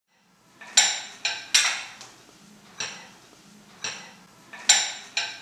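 Cutlery and dishes set down on a table: about seven sharp clinks with a short ring, spaced unevenly.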